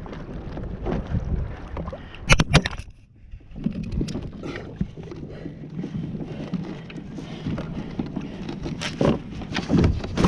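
Handling noise on a plastic fishing kayak: a steady low rush of wind and water on the microphone. A quick cluster of sharp knocks comes about two and a half seconds in, and a few more near the end.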